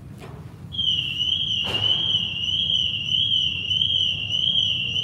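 High-pitched electronic alarm starting about a second in, one tone warbling up and down about twice a second, with a single knock just after it starts.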